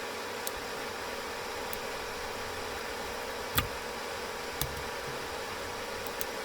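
A few sharp clicks and taps from small tools and phone parts being handled during a smartphone teardown: the loudest about three and a half seconds in, another about a second later, and fainter ones near the start and end, over a steady background hiss and hum.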